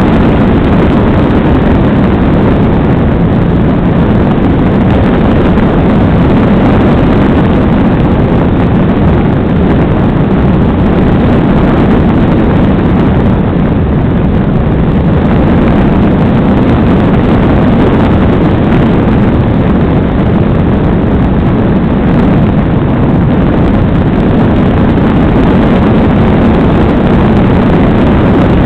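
Loud, steady wind rush over the microphone of a small camera riding on a radio-controlled glider in flight.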